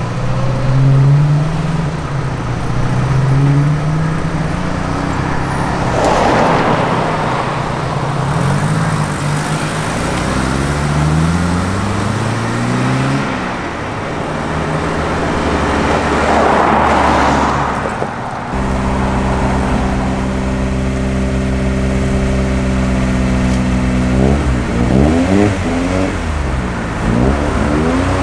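Classic Ford car engines pulling away one after another: the Mk3 Ford Cortina rally car's engine revs up through the gears, cars pass close twice with a rush, and later an engine idles steadily before revving up again as it pulls out.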